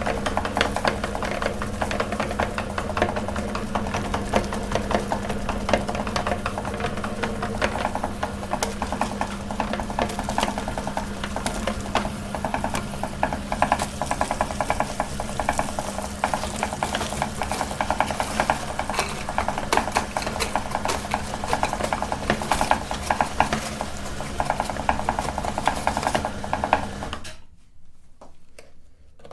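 Electric meat grinder running while it grinds marshmallows: a steady motor hum under a dense patter of small clicks. It stops abruptly near the end.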